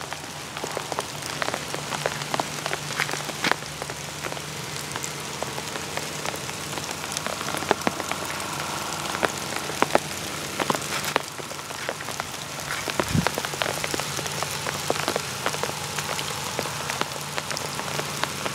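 Light rain falling on dry leaves and brush: many separate drops tick against a steady hiss, with a dull thump about 13 seconds in.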